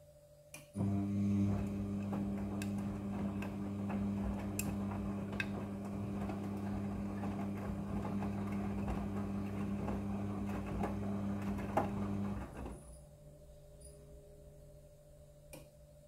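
Midea front-loading washing machine tumbling its wet load in the wash: the motor hums steadily while clothes and water churn in the turning drum, with scattered clicks. The drum starts about a second in and stops about twelve seconds in.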